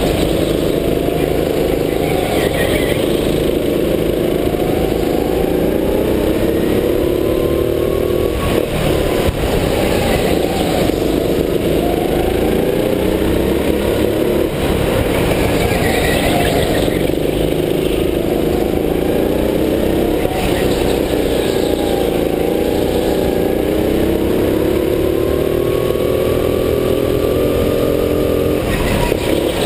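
Go-kart engine heard from on board, revving up on the straights and dropping back into the corners. Its pitch climbs and falls again several times.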